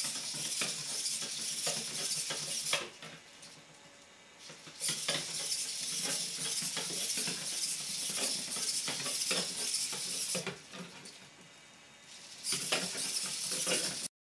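Kondo KHR-1 humanoid robot walking on vinyl tile: a rapid, irregular clatter of its servos working and its feet tapping on the floor, over a high whirring hiss. The noise drops away twice for about two seconds and cuts off suddenly near the end.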